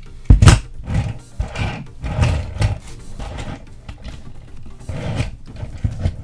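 Plastic action figure being handled and transformed close to the microphone: a series of irregular knocks, clicks and rubbing scrapes as parts are squeezed and pushed into place, the loudest knock about a third of a second in, over quiet background music.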